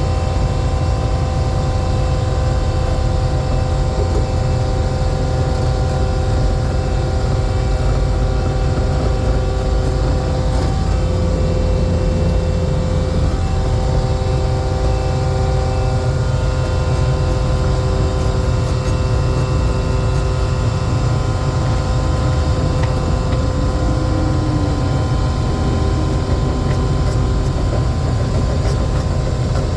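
Excavator's diesel engine running steadily under load, with a hydraulic whine whose pitch shifts a few times as the arm lifts and carries a chained concrete block of about 3,000 pounds.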